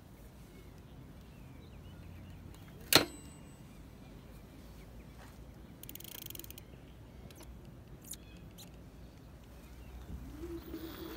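A sharp click about three seconds in, then a brief rustle and a smaller click as the rider handles and mounts the e-bike. Near the end the Engwe Engine Pro's 750 W hub motor starts up with a whine that rises in pitch as the bike pulls away.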